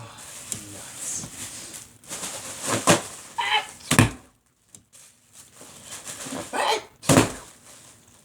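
Bags being popped: three sharp pops, about three, four and seven seconds in, with crinkling rustle of the bags between them.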